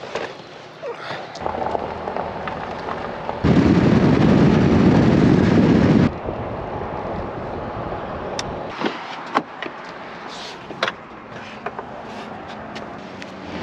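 Car sounds in quick cuts. First comes movement around the car with a low hum. Then about two and a half seconds of loud, even road and wind noise while driving, cutting off suddenly. Last come scattered clicks and knocks as a plastic bait bucket is handled inside the car.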